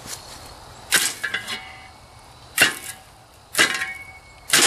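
A metal shovel knocking against metal: four sharp clanks about a second apart, each ringing briefly.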